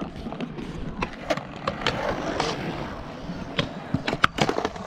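Small hard wheels of stunt scooters and skateboards rolling on concrete, a steady rumble broken by repeated sharp clacks and knocks as decks and wheels hit the ground, thickest near the end.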